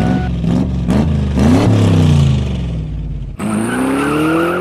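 Car engine revving in several quick blips, each rising and falling in pitch, then after an abrupt cut about three and a half seconds in, an engine accelerating with a steadily rising pitch.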